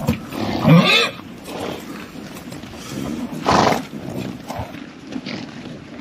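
Horses whinnying, with a loud breathy blast about three and a half seconds in.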